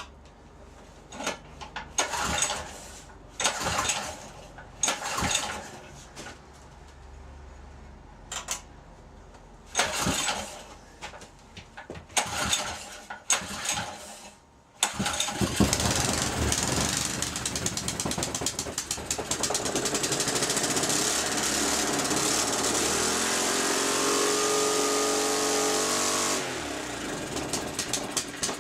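Small gasoline rototiller engine being pull-started: several short recoil-rope pulls, then about 15 seconds in it catches and runs loud at high speed, wide open, which the owner puts down to a sticking throttle. Near the end its level drops and it runs rougher.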